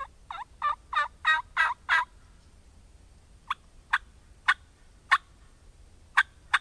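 Wild turkey calling: a run of about seven yelps in the first two seconds, then, after a short pause, single sharp clucks about every half second.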